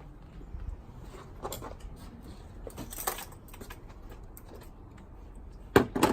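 Plastic wiring-harness connectors and parts being handled: scattered light clicks and rattles, then two sharp knocks close together near the end.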